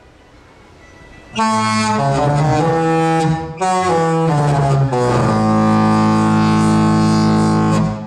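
The Disney Dream cruise ship's musical horn playing a tune, a string of deep brassy notes with a short break partway through. It ends on a long held note that cuts off near the end.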